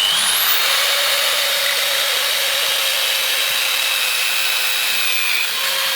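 Electric power tool, grinder-like, grinding metal: a loud steady hiss with a high whine. It is switched off near the end and winds down.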